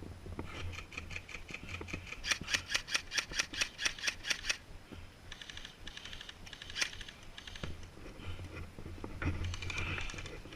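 Airsoft gun firing a rapid string of shots, sharp clicks about six a second. They are loudest for a couple of seconds early on, with weaker strings later.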